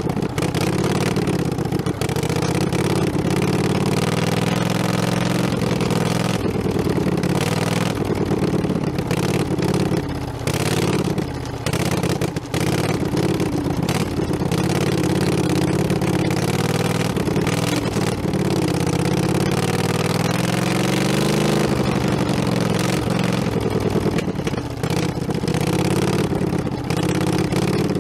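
Small tractor engine running as the tractor is driven, its pitch rising and falling all through, with frequent knocks and rattles.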